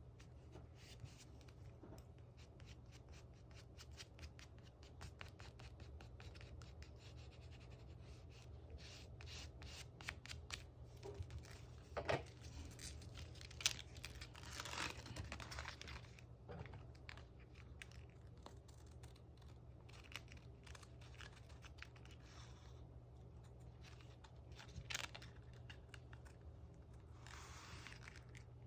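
Quiet paper-crafting sounds from scrapbook diary decorating: many small taps and clicks, with louder crackly stretches of paper or stickers being torn, peeled and rubbed about halfway through and again near the end, over a faint steady low hum.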